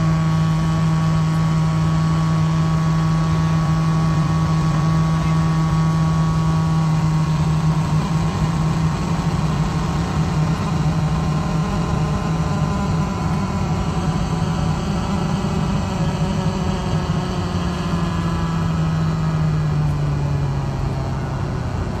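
Faulty ceiling loudspeaker in an airliner cabin giving out a loud, steady low hum over the cabin's rushing air noise. The hum wavers in pitch in the second half and drops lower near the end.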